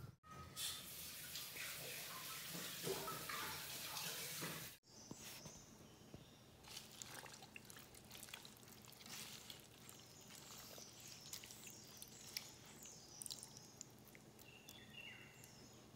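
A steady rush of water for the first few seconds. After a break, hands swish and rinse black nightshade leaves in a steel bowl of water, with light splashes, drips and small clicks. Faint bird chirps can be heard behind.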